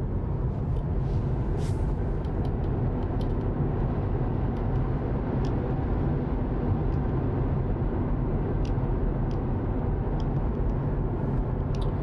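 Road and wind noise inside a Tesla Model 3's cabin at a steady cruise of about 60 mph: a continuous low tyre rumble with a hiss above it. A few faint ticks sound here and there.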